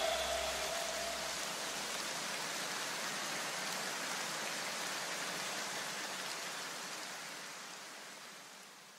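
A steady, even hiss that fades away over the last few seconds. A low pulsing tone and a held note die out in the first second or two.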